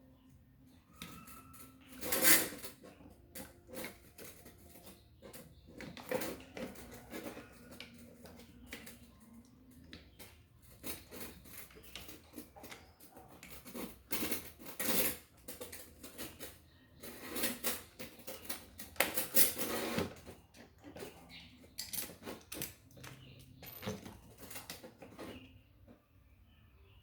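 Irregular clinks and knocks of small metal parts and tools being handled, some in quick clusters, with the loudest knocks about two seconds in and again in the second half.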